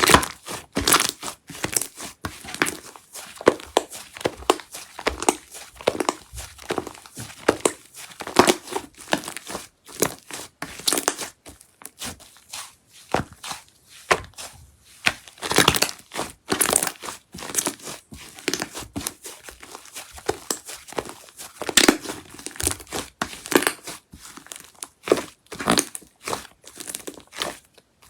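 Slime being squeezed, poked and stretched by hand, giving a dense, irregular run of sticky crackles and clicks, several a second.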